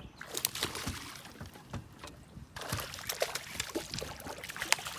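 Water splashing and sloshing at the side of a small aluminium fishing boat, with many short clicks and knocks.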